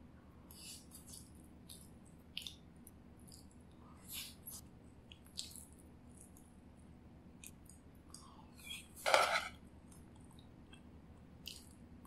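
Close-miked eating sounds of a person chewing roasted pumpkin and turmeric rice, with many small mouth clicks and spoon sounds scattered through, and one louder brief noise about nine seconds in.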